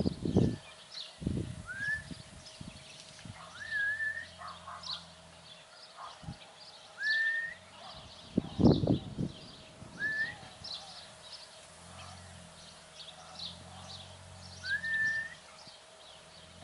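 Wild birds chirping in quick short notes, while one bird repeats a short rising whistle about five times. A few dull thumps and rustles come through, the loudest about 9 s in.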